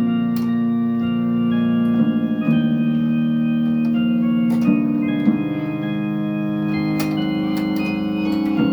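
Organ voice on a Yamaha PSR electronic keyboard playing a slow hymn in three-part harmony: held chords that change every second or two, with faint key clicks at the changes.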